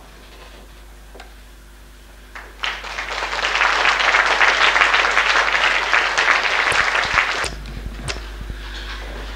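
Audience applauding in a hall: after a quiet pause the clapping starts a few seconds in and breaks off abruptly near the end, followed by a few faint knocks.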